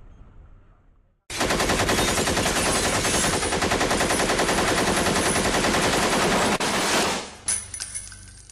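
Sustained rapid automatic gunfire, a long unbroken burst of fast, even shots that starts abruptly about a second in and stops abruptly near the end, leaving a short fading tail.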